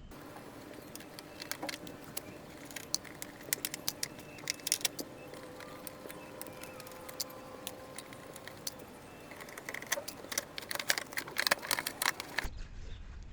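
Irregular clicks and light metallic clinks of hand tools and plastic trim fasteners as a car's wheel liner is taken off, thickest about ten seconds in, over a faint steady hum.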